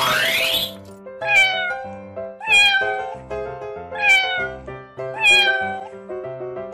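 A domestic cat meowing four times, about one every second and a half, each meow falling in pitch, over light children's music. It opens on the tail end of a rising whoosh.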